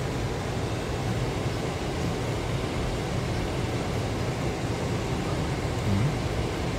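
Steady low rumble of a car's engine and tyres, heard from inside the cabin while driving slowly, about 20 km/h. The sound is briefly louder about six seconds in.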